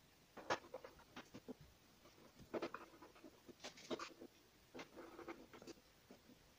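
Scattered light scrapes, clicks and rustles of hands handling an LG LED TV set, irregular and faint.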